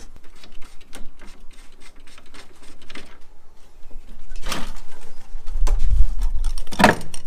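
Scattered clicks and knocks of metal parts and hand tools being handled in a car's engine bay, with two louder knocks about four and a half seconds in and near the end.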